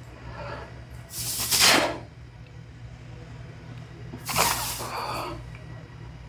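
A man blowing out hard through his mouth while flexing, twice, each breath a loud hiss lasting most of a second, over a steady low hum.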